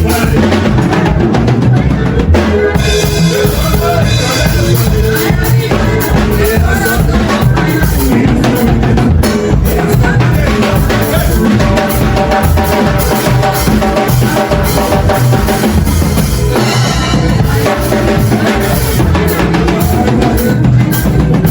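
Loud praise-band music driven by a drum kit, with a steady kick-and-snare beat under held pitched notes.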